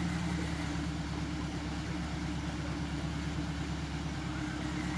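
Suzuki Jimny off-road 4x4 engine idling with a steady low hum.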